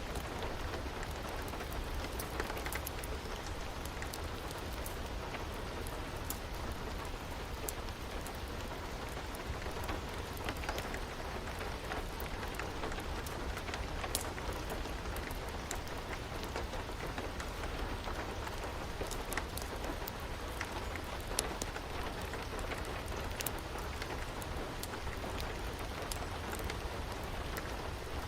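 Steady rain, with scattered sharp pops and crackles from a wood fire.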